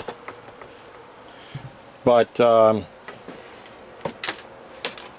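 A man's short wordless vocal sounds about two seconds in, a few light clicks, and a faint steady buzz underneath.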